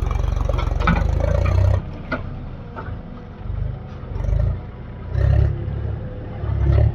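Heavy diesel engine of earthmoving machinery running, with several surges in power as it works under load. A few sharp metal clanks come through about one and two seconds in.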